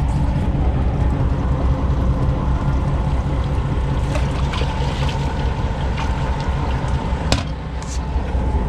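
Boat engine running steadily, with water splashing along the hull and a sharp click about seven seconds in.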